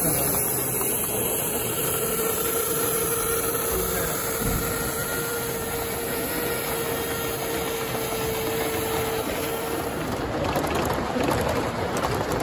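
Gauge one live steam model of a Rio Grande K-27 locomotive, No. 463, running past with a freight train: a steady hiss of steam together with the running noise of its wheels on the track.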